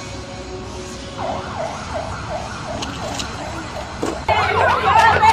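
Siren-like warbling wail, a rapid swooping tone repeating about three times a second, entering about a second in; near the end a louder, denser layer of the same sweeps joins in.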